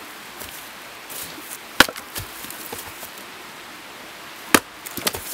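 Axe splitting a rotten, damp round of firewood: two heavy chops about three seconds apart, the first the loudest, with a couple of lighter knocks near the end.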